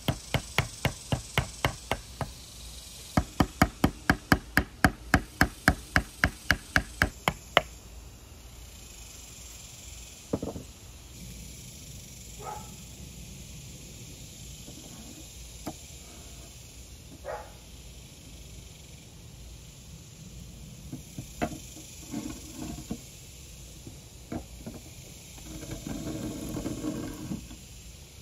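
Rapid, evenly spaced sharp wooden knocks, about four a second, in two runs lasting a few seconds each. These are followed by a few scattered knocks and a brief scraping rustle near the end.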